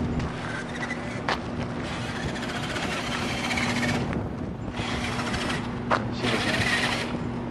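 Excavator robot driving, its drive motors giving a steady hum under a noisy rush. A sharp click comes about a second in and another about six seconds in, and the noise drops briefly around four seconds.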